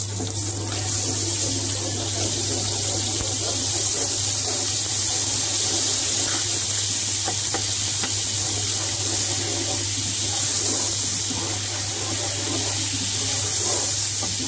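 Ginger-garlic paste sizzling in hot cooking oil in a nonstick pot, a steady frying hiss, as a wooden spatula stirs it.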